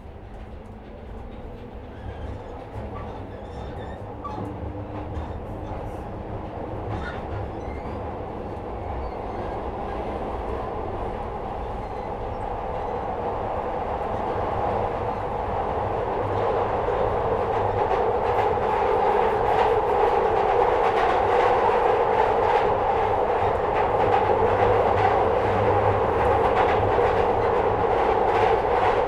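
Running noise inside a Metro-Cammell-built 2nd Gen Glasgow Subway car, building steadily for about the first twenty seconds as the train picks up speed, then holding. A rapid clatter of wheels over the track grows through the second half.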